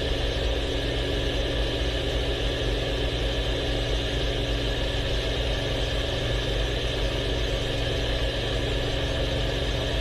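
Hawker Sea Fury's big piston radial engine running at a steady, loud drone, heard from the cockpit, with no rise or fall in pitch.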